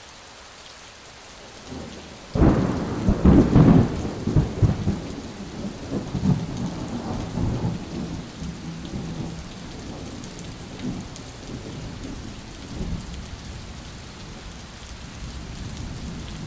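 Recorded thunderstorm: steady rain, with a loud thunderclap starting about two seconds in whose rumble dies away slowly over several seconds while the rain keeps falling.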